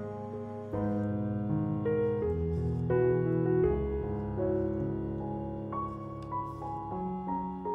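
Gentle solo piano background music, a slow melody of held notes changing every half second or so.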